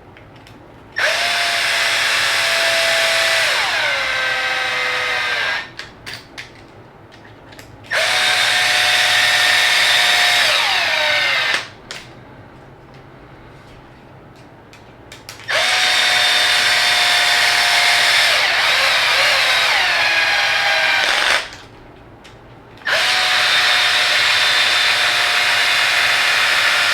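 Small Milwaukee cordless drill with a 2 mm hex bit driving four screws, one after another, into a plastic RC transmission housing. Each run is a steady whine that drops in pitch as the screw seats, then stops. The drill is on a low clutch setting, which clicks when the screw is tight.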